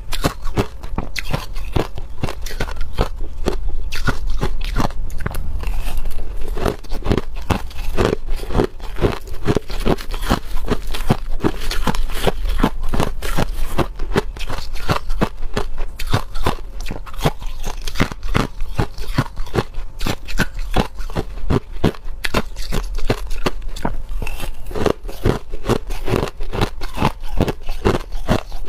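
Crushed ice being bitten and chewed, a quick run of crisp crunches that goes on without a break.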